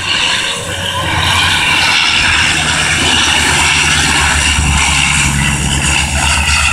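Canadair amphibious water bomber flying low overhead, its propeller engines droning loudly. The engine sound swells about a second in, then holds steady with a high whine above the low drone.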